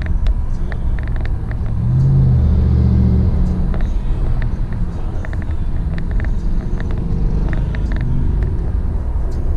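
Car driving at highway speed, heard from inside the cabin: a steady low rumble of tyres and engine, swelling for a second or so about two seconds in, with scattered light clicks.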